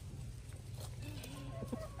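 Ayam Cemani chickens clucking, a few short calls in the second half, over a steady low hum.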